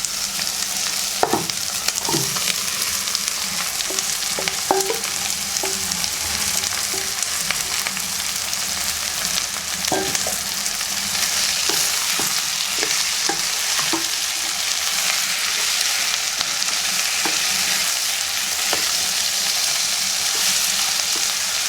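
Pre-cooked beef frying in oil with onion and tomato in a pan, sizzling steadily while it is stirred, with scattered knocks of the stirring utensil against the pan. The sizzle grows louder about halfway through.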